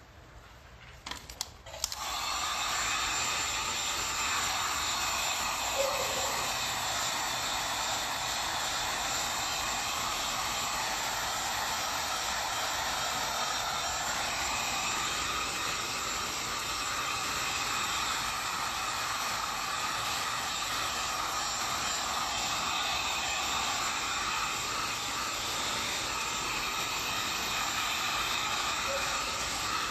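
Handheld electric heat gun switched on about two seconds in, then running steadily with a constant fan whoosh as it blows hot air over fresh spray paint.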